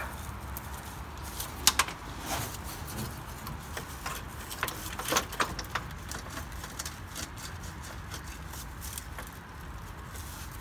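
Irregular light metallic clicks and taps of hand tools and a metal transmission cooler line being worked at a fitting, over a steady low rumble.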